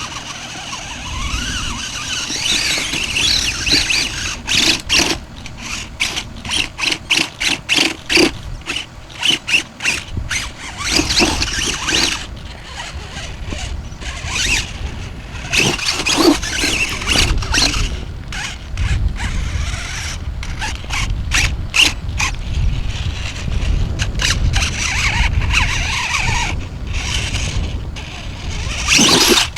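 Radio-controlled off-road model car's drivetrain whining at a high pitch, cutting in and out in many short throttle bursts, rapid on-off blips in the first half, longer pulls later.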